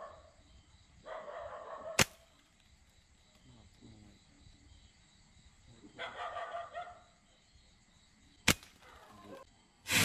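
Sharp snaps of a slingshot being shot at a bird in a tree: one about two seconds in, another about eight and a half seconds in, and a louder one at the very end. A dog barks twice in between, each call drawn out for about a second.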